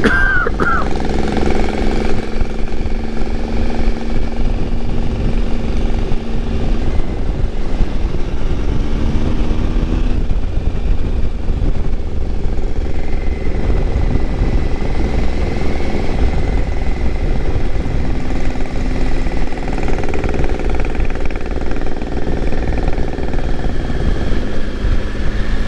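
Wind rushing over the microphone of a moving motorcycle, with the Triumph Tiger 955i's three-cylinder engine running underneath at cruising speed, its note rising and falling a little.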